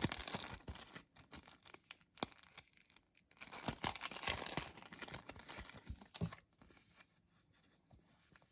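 A sticker being peeled off its backing sheet: a papery tearing rustle at the start and again about halfway through, with small handling clicks in between.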